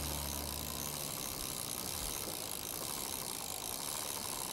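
Bicycle drivetrain being turned by hand with the cranks spun backward: the chain runs over the cogs and the rear hub's freewheel pawls tick, steady throughout, while lube goes onto the freshly dried chain.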